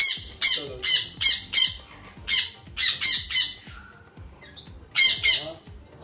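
Pet parrots squawking: short, harsh, high-pitched screeches, two or three a second, in three bursts with a pause of about a second after the middle.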